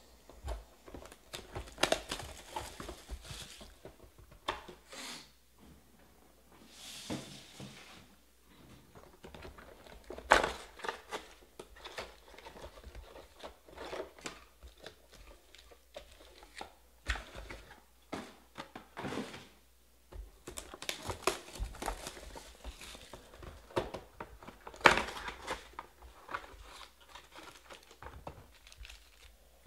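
Panini Prizm Draft football hobby boxes being opened by hand, with cardboard tearing and rustling and card-pack wrappers crinkling, in irregular bursts with sharp taps and knocks.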